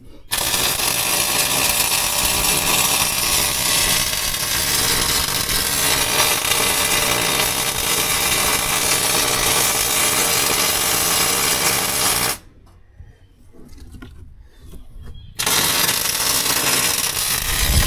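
Electric welding arc crackling and buzzing steadily for about twelve seconds, breaking off for about three seconds, then striking up again near the end.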